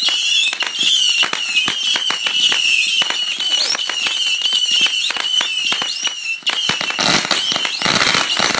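Ground fireworks going off: fountains spraying sparks with many sharp crackling pops, over a high warbling whistle that fades out about six and a half seconds in. Near the end comes a denser burst of hissing crackle.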